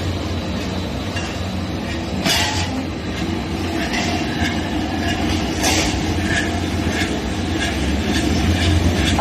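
Drywall profile roll forming machine running: a steady low hum under a rolling metallic clatter from the roller stands, with two short noisy bursts, a couple of seconds in and again about three seconds later.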